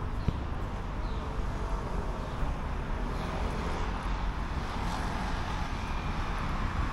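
Steady low rumble of vehicle running noise.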